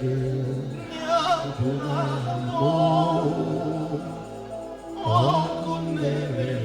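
Music with a singing voice holding long notes that waver with vibrato, over steady low sustained tones.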